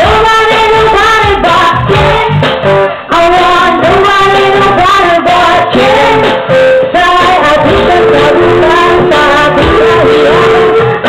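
Two female vocalists singing a pop song into microphones over loud amplified band accompaniment with a steady beat.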